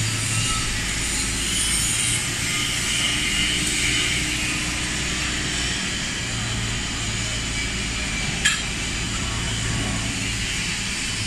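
Steady machinery din in a steel fabrication shop: a low hum under a broad hiss. A single sharp metallic clank sounds about three-quarters of the way through.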